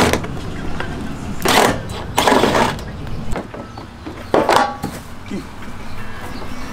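Three short noisy bursts of hands-on work noise, spread a second or two apart, as the front fender of a Toyota FJ Cruiser is unbolted and pulled off.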